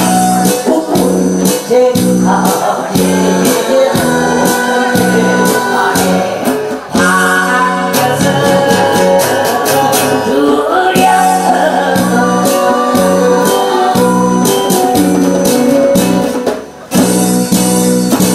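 Music: an acoustic guitar strummed along with a djembe hand drum played in a steady beat, with a brief break near the end.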